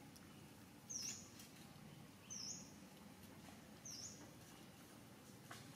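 A small bird chirping: a short, high call repeated three times, about a second and a half apart, over faint outdoor background noise.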